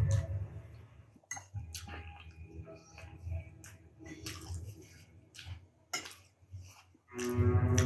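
A metal fork clicking against a ceramic plate, several separate sharp clicks, with wet chewing and finger-licking sounds.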